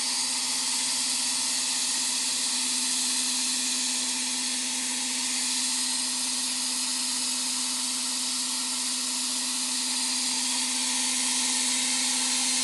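Steady hiss of a compressed-air sandblasting nozzle jetting abrasive at a rotating steering rack, roughening the shaft so the sprayed metal will bond, with a steady low hum underneath.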